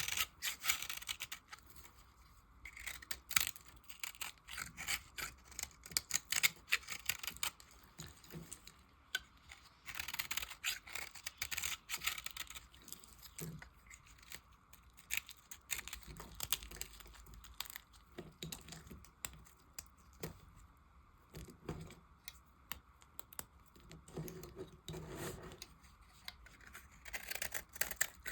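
Knife cutting into pieces of soap: a quick series of crisp cuts and scrapes in clusters, with short pauses between them.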